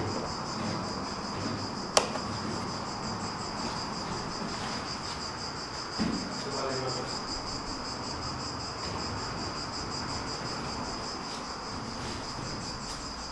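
Insects chirring steadily, a high, evenly pulsing drone, with a single sharp click about two seconds in and a soft thump near the middle.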